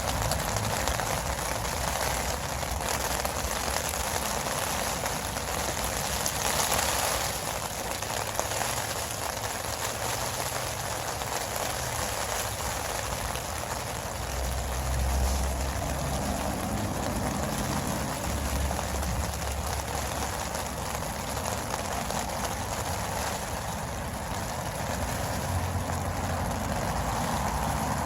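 Steady heavy rain, with a few low rumbles around the middle and near the end.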